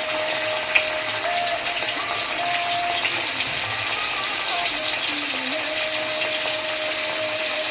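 A steady hiss with fine crackles, under soft background music of held notes that step from one pitch to another.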